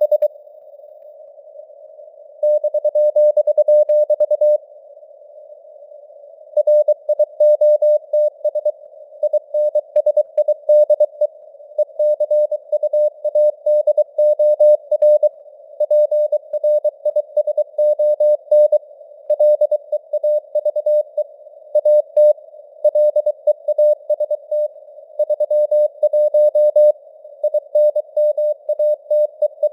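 Morse code sent at 23 words per minute: a single tone of about 600 Hz keyed on and off in dots and dashes, over simulated radio noise, with the signal strength fading up and down (QSB). Two pauses of about two seconds break the keying near the start.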